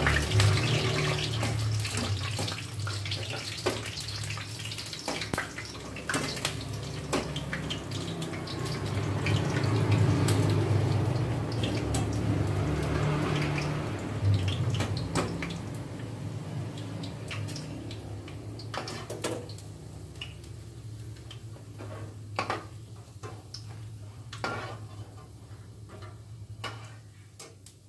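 Kerupuk crackers sizzling as they fry in hot oil in a wok, with clicks of a metal spatula against the pan and a steady low hum underneath. The sizzling dies down over the second half.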